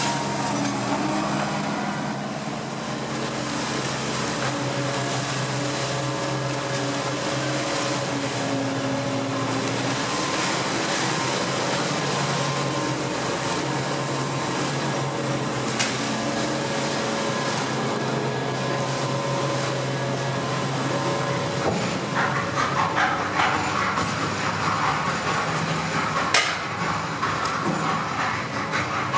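Terex Fuchs MHL 250E material handler at work, a steady machine drone carrying several tones. About three quarters of the way in, irregular crackling and clattering joins it as the sorting grab handles loose recycling waste.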